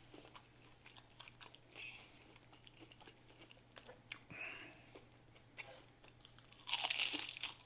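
A person chewing food close to the microphone with small wet mouth clicks, then a louder crunchy bite near the end.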